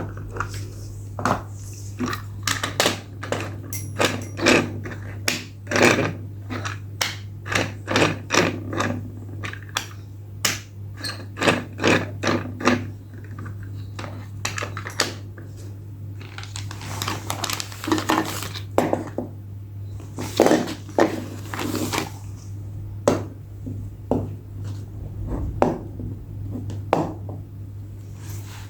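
Toy car packaging being handled close to the microphone for unboxing: an irregular stream of crinkles, clicks and scratches, over a steady low hum.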